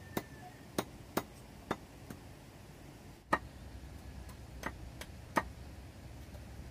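Machete blade chopping into a small piece of wood on a wooden block: about nine sharp wooden knocks at uneven intervals, the loudest a little past the middle.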